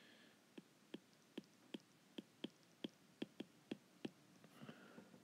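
Stylus tapping on an iPad glass screen while handwriting figures: about a dozen light, sharp clicks, two to three a second, stopping about four seconds in, against near silence.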